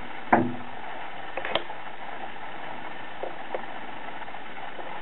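Steady background hiss with a short knock about a third of a second in, a sharp click about a second and a half in, and a couple of faint ticks later.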